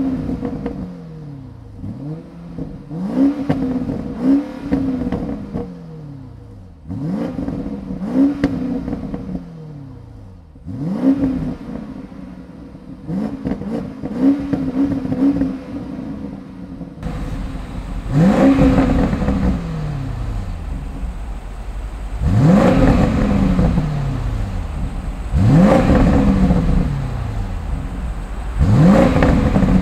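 Alpina XB7's twin-turbo 4.4-litre V8 exhaust being revved in repeated blips, each a quick rise in pitch that slides back down to idle, roughly every three to four seconds. From about halfway through a steady rush sits under the revs.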